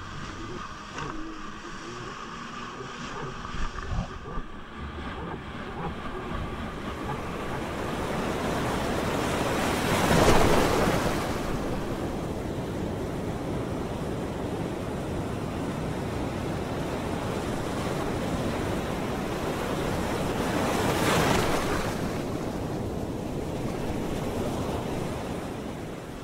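Ocean surf: a steady wash of waves, with two waves breaking louder, about ten seconds in and again about ten seconds later.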